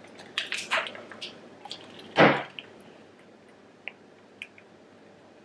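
Drinking from a glass of ice water: small clinks and gulps in the first second or so, then one loud, short breath out about two seconds in, and a few faint ticks after.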